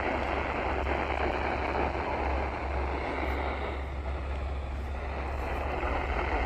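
Steady static hiss from a NOAA weather radio receiver with no voice on the channel, over a constant low hum.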